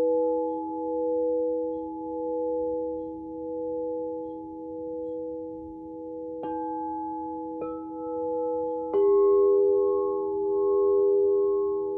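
Alchemical crystal singing bowls ringing together in long sustained tones, one swelling and fading about once a second. Three more bowls are struck, about six and a half, seven and a half and nine seconds in, each adding a new ringing note, the last the loudest.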